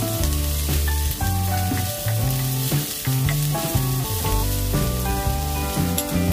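Chopped onions and green chillies sizzling and crackling in hot oil in a pan as a wooden spatula stirs them. Background music with a melody and bass line plays over it and is the louder sound.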